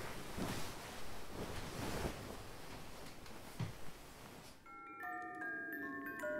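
Rustling of a duvet and bedding with soft knocks as someone tosses about on a bed; about five seconds in, music of clear chime-like bell notes starts abruptly.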